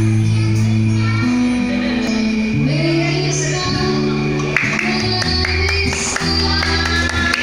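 Live band music: a woman singing over acoustic guitar, with long held low notes that change pitch every second or so.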